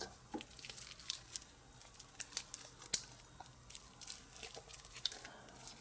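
Faint, irregular small clicks and light rustling from a stainless steel watch and bracelet being handled, with one sharper click about halfway through.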